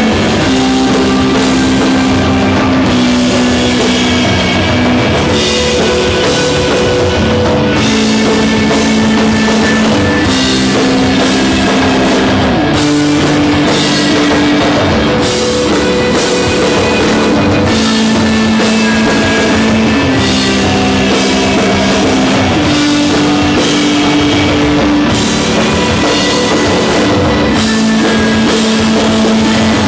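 A rock band playing live stoner rock: a drum kit keeps time under a repeating riff of long, held low notes that change every couple of seconds.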